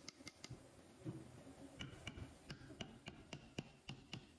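Faint, sharp clicks and light taps, about three a second and unevenly spaced, over a low background hum.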